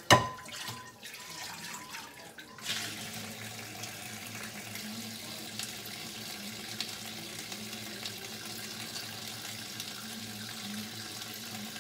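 A loud clank right at the start that rings briefly. Then a kitchen faucet runs steadily into the sink, louder from under three seconds in, as a non-stick frying pan is rinsed under the stream.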